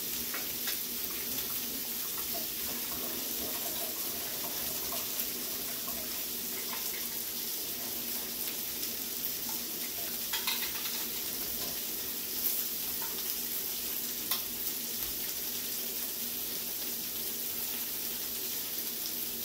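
Orange and red peppers sautéing in a pan: a steady sizzle. A few light clicks about halfway through, from the can being handled at the sink.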